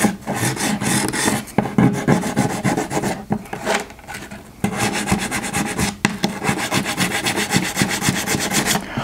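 A small piece of sandpaper rubbed by hand in quick back-and-forth strokes over pallet wood, scuffing out a crack to clean and key it for epoxy. The strokes ease off briefly about three seconds in, then carry on.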